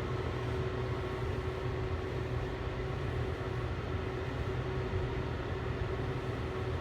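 Portable ceramic space heater's fan running, blowing steadily with a constant hum.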